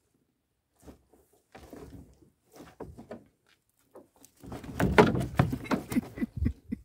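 A gill net being hauled over the side of a small boat into a plastic tub, with scattered rustles and knocks that grow louder and busier about four and a half seconds in.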